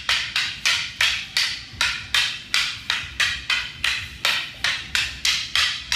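Background music: a fast percussive beat of sharp, wood-block-like hits, about four a second and very even, over a low bass rumble.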